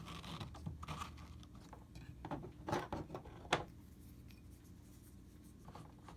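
Leather rubbing and scraping with light clicks as tools are pushed into the pocket of a new, stiff leather sheath, with two sharper clicks near the middle.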